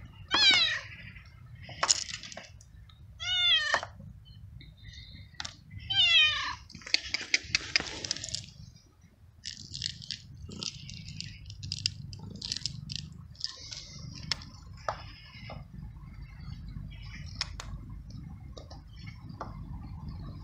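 Male tabby street cat, a tom in heat, meowing loudly three times with long falling calls as it asks for food. About seven seconds in, dry kibble rattles out of a container onto paving stones, followed by scattered clicks and crunches as the cat eats the kibble.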